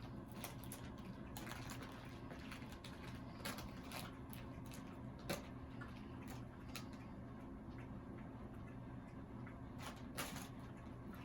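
Quiet room with a steady low hum and scattered soft clicks and taps, the most distinct about five seconds in and again about ten seconds in.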